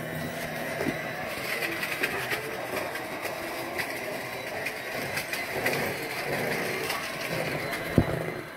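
Black & Decker electric hand mixer running steadily, its beaters whipping mashed potatoes in a stainless steel bowl, with many small clicks throughout.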